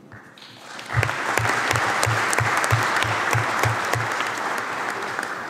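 Audience applause in a large hall, swelling about a second in and slowly dying away near the end. The claps of one person close to a table microphone stand out as low thuds about three times a second.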